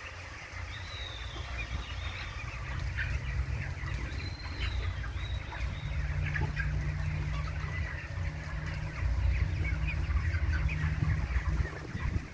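Many chickens clucking and calling at once, over a steady low rumble.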